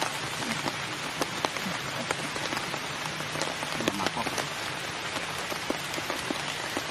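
Steady patter of rain falling on leaves and ground, with many small drop ticks scattered through it.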